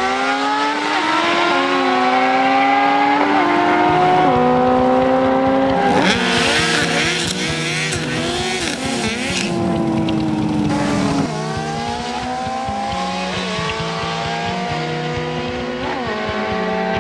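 Drag-racing motorcycles accelerating hard down the strip. The engine note climbs in pitch and drops back at each upshift, several times over, with a second engine running underneath.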